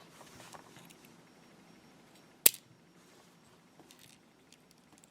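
Small handling clicks from a dimple lock cylinder being emptied with a front loader, turned so that its pins eject one at a time, with one sharp click about two and a half seconds in.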